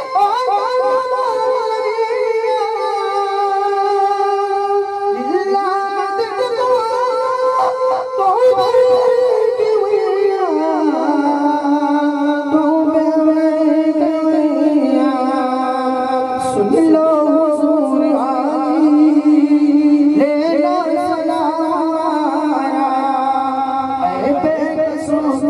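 A man singing a slow devotional chant into a microphone, holding long, wavering notes that slide between pitches. About ten seconds in the held note drops lower.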